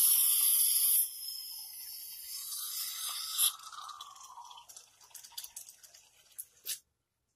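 Aerosol whipped-cream can spraying: a loud hiss for about a second, then a weaker hiss, breaking up about halfway through into scattered sputtering pops. The can is running nearly empty.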